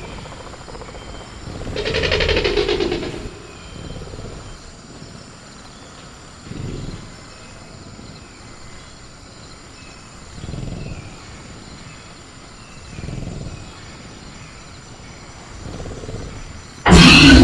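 Sound-effect velociraptor growling in a cage: a loud growl about two seconds in, then quieter low growls every two to four seconds. Near the end a sudden loud crash begins, which fits the raptor rattling its cage.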